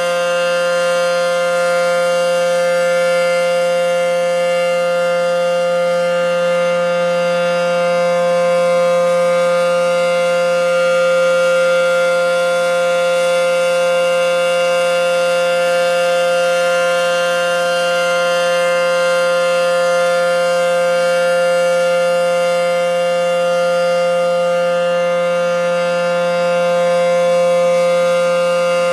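ACA P-10 outdoor warning siren sounding the steady alert signal, heard from directly beneath it: one unwavering pitch with many overtones, swelling slightly in loudness now and then.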